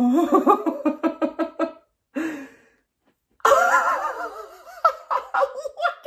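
A man laughing: a run of quick bursts of laughter, a brief pause about halfway through, then louder, higher-pitched laughter.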